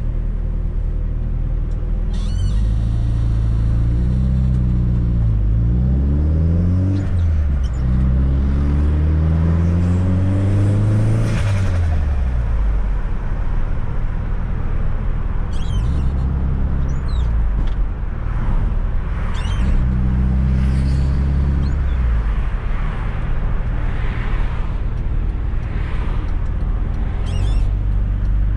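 Fiat Coupe 2.0 16V Turbo's four-cylinder engine heard from inside the car, accelerating through the gears. The revs climb and drop at each shift, and short high squeaks come near the shifts, from a squeaky clutch pedal.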